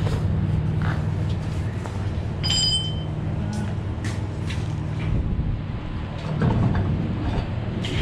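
A vehicle engine running steadily, with scattered clicks and knocks. There is a short high-pitched beep or squeal about two and a half seconds in.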